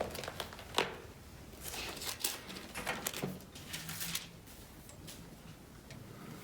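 Pages of a book rustling, with a few short bursts and light clicks, as a passage is looked up.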